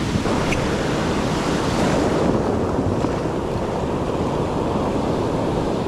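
Ocean surf breaking and washing up the beach, a steady rush of whitewater, with wind buffeting the microphone.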